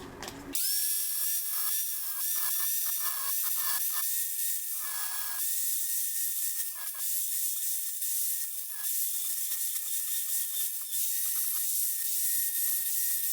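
Angle grinder starting up about half a second in and running at speed with a steady high whine and a hiss of the disc grinding a steel knife blank, the grinding noise breaking up unevenly in the first few seconds.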